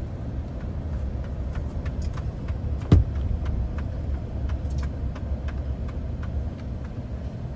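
Car driving along a winding road, heard inside the cabin: a steady low rumble of engine and tyres with scattered light clicks and one sharp knock about three seconds in.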